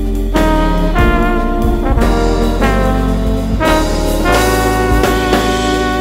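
Jazz trombone playing a melody of held notes, changing pitch about once a second, over a steady bass line and drums.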